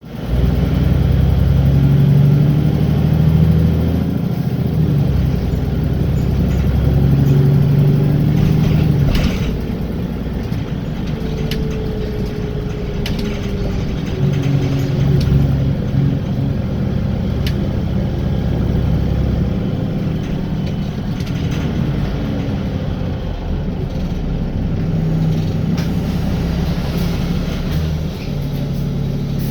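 Wright Gemini 2–bodied VDL DB300 double-decker bus heard from inside, its diesel engine pulling hard, easing off about nine seconds in, then pulling again in several surges, with a few sharp clicks and rattles. This bus makes a strange ticking noise when accelerating, not usual on a Gemini 2.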